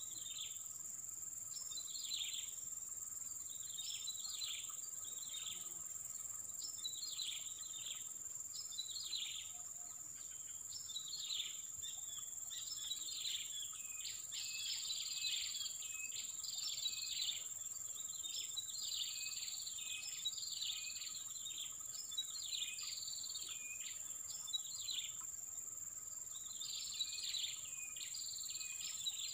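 Insects trilling in a steady high-pitched chorus, with a chirping call repeated roughly once a second.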